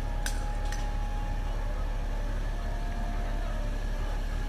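A tractor's diesel engine running steadily, giving a low, even rumble, with a couple of faint clicks near the start.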